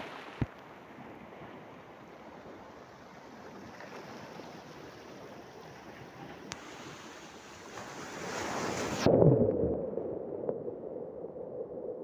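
Sea waves washing over shoreline rocks, with a sharp click just after the start. The surf swells to a louder break about nine seconds in, and the sound then abruptly turns muffled, losing its hiss.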